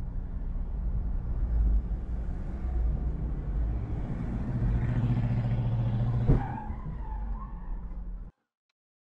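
Dashcam recording of steady road and engine noise, then one sharp crash about six seconds in as a Jeep swerves and tips over right in front of the camera car, followed by a short wavering high screech. The sound cuts off abruptly near the end.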